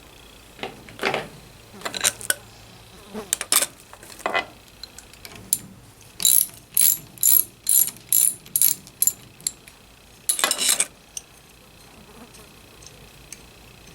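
Ratchet wrench clicking in short bursts while unbolting a baler's twine knife; a regular run of about eight strokes, roughly two a second, in the middle, then one longer burst of clicking.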